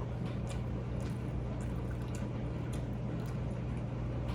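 Close-miked chewing and mouth sounds: soft wet smacks and clicks about twice a second, over a steady low hum.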